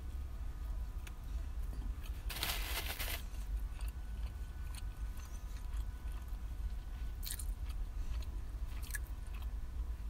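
Biting and chewing a toasted ham and cheese sandwich, with one loud crunch lasting about a second starting a little after two seconds in, then quieter chewing with a few small clicks of the mouth.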